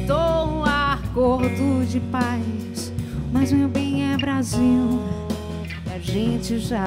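A band playing live: a woman singing with sliding, held notes over guitar, bass guitar and a drum kit, with cymbal hits.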